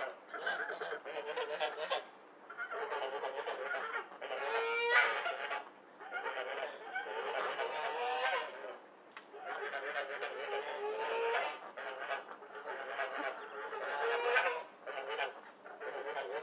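Several ducks quacking together in bouts of calling, each bout lasting a couple of seconds with brief pauses between them.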